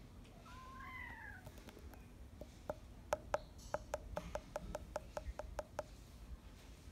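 Mudhol Hound puppy whining in a couple of high, bending whimpers. About two and a half seconds in, a quick, even run of about a dozen sharp chirping clicks starts, louder than the whimpers, and lasts about three seconds.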